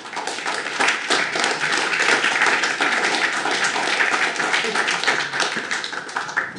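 Audience applauding: many people clapping, thinning out near the end.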